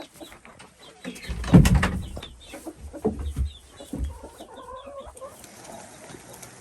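Hens clucking and calling in a coop, with a few knocks and a dull thump about a second in.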